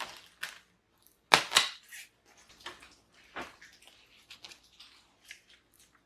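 Close-up clicks, taps and rustles of PC hardware and cables being handled. Two sharp clicks close together about a second and a half in are the loudest.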